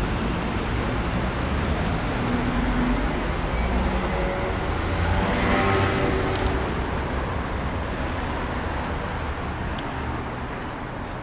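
City street traffic noise, a steady rush of passing vehicles, loudest about halfway through and growing quieter over the last few seconds.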